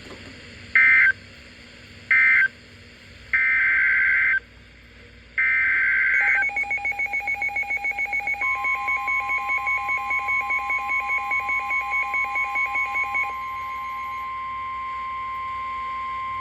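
Emergency Alert System SAME data bursts: short burst tones closing one severe thunderstorm warning, then two longer header bursts opening the next alert. Then a fast-pulsing alert beep, and a steady single-pitch NOAA Weather Radio warning tone that cuts off near the end.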